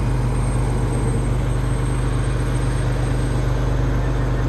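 Fire truck's heavy diesel engine idling, a steady low hum that stays even.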